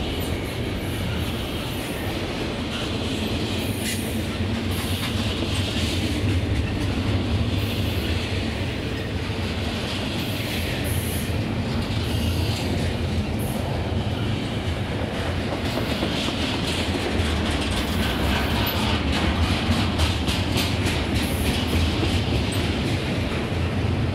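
Double-stack intermodal container train rolling past close by, with a steady rumble of steel wheels on rail and runs of clicking from wheels passing over rail joints, especially near the end. Wheel squeal from the curve comes and goes throughout.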